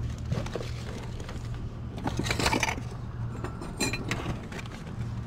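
Hard objects clinking and knocking together as they are handled: a short clatter about two seconds in, then a few ringing clinks about four seconds in, over a low steady hum.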